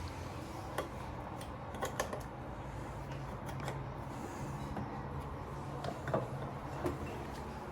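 A handful of light clicks and knocks at irregular intervals, over a steady low hum.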